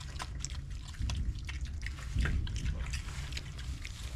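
Idaho Pasture piglets eating feed: irregular, clicky, wet chewing and smacking, with a louder low sound a little after two seconds in.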